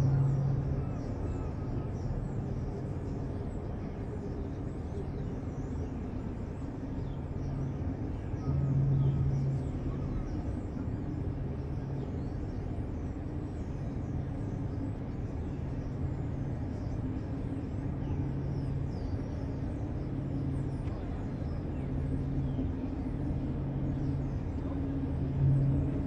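Low engine drone with a steady hum that swells and fades every couple of seconds, loudest about nine seconds in and again near the end.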